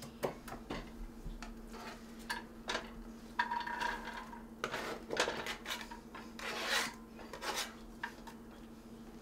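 A knife blade scraping diced onions and potatoes across a plastic cutting board and into a frying pan, with scattered rasping scrapes and light taps.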